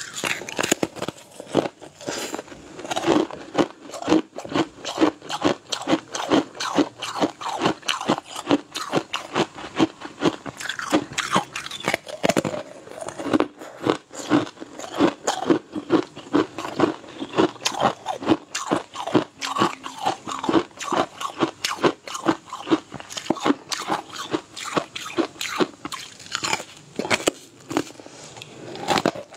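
Crunching and chewing of thin, brittle crisp sheets: a continuous run of crisp crunches, about two to three a second, as pieces are bitten off and chewed.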